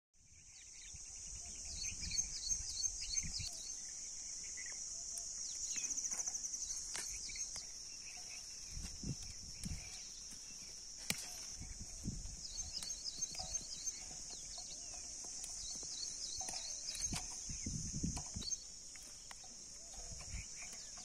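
Outdoor field ambience: a steady high-pitched insect drone with birds chirping over it. Soft rustles and knocks come now and then from hands picking beans among the plants.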